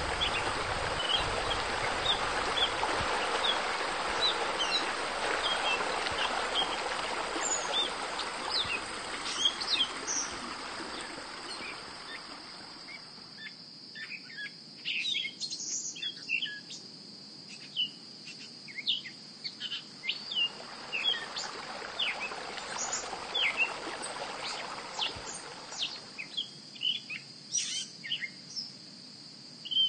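Nature ambience: many small birds chirping and calling with short quick notes, over a steady high insect drone. A broad rushing noise swells under them for the first dozen seconds or so and again for several seconds past the middle.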